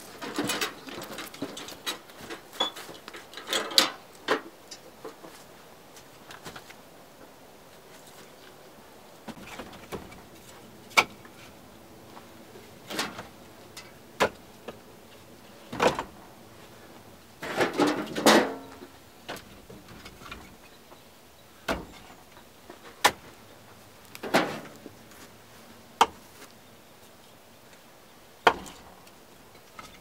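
Split firewood logs knocking against one another as they are set by hand onto a woodpile: single sharp wooden clacks, with a short cluster now and then, every one to three seconds. At the start, a loaded metal wheelbarrow rattles as it is pushed along.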